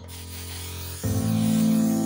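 Background music of held, sustained chords, shifting to a new, louder chord about a second in.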